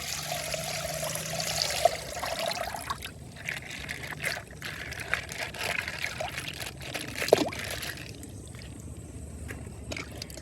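Coloured water pouring and trickling out of a burst plastic bag, strongest in the first few seconds, then thinning to scattered clicks and crinkles of the plastic being handled.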